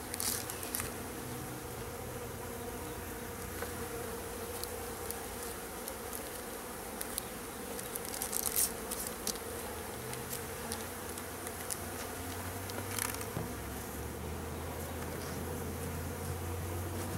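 A mass of honey bees buzzing steadily in and around a freshly installed package hive, with a few brief clicks and rustles, the loudest about halfway through.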